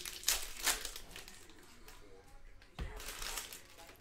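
Foil trading-card pack wrappers crinkling as they are handled and opened, in two bursts: one right at the start and another about three seconds in.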